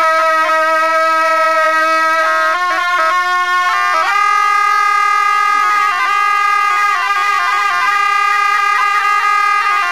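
Two gyaling, Tibetan double-reed shawms, playing a slow melody together: long held, reedy notes with quick ornamental flourishes between them. The melody steps up about four seconds in and drops back near the end.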